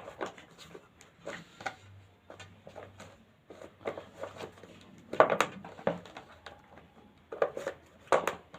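Plastic housing parts of an electric blender being handled and fitted back together, making a series of light clicks and knocks, with louder clusters about five seconds in and near the end.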